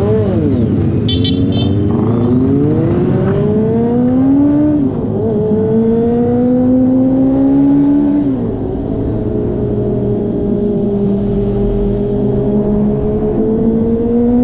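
Yamaha R15's single-cylinder engine running through an aftermarket exhaust fitted to make it sound like a four-cylinder, accelerating through the gears while riding. The engine note climbs and falls back at gear changes about five and eight seconds in, then holds a steady cruising note.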